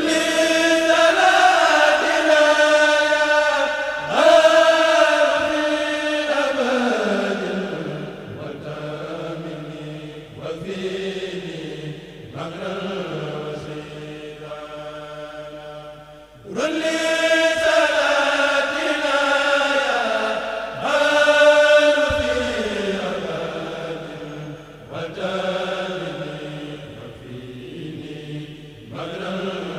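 A kurel of men chanting Mouride khassaid verses together, unaccompanied, into microphones. The chant comes in long phrases that each open loudly and slide down in pitch, with a fresh loud entry about halfway through.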